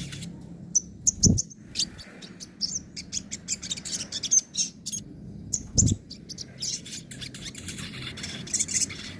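Sogon bird singing in quick bursts of sharp, high-pitched chirps and trills, the rapid 'nembak' and chattering 'ngobra' styles. Two dull thumps come through, about a second in and near six seconds.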